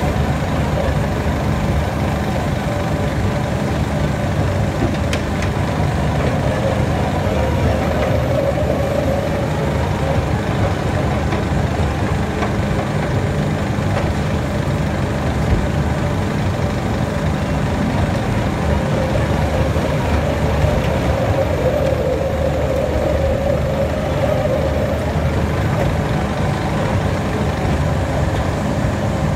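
Lindner Urraco 75 DK mobile shredder running steadily while shredding dry cardboard cores, a continuous low machine drone. A mid-pitched hum in it grows louder twice.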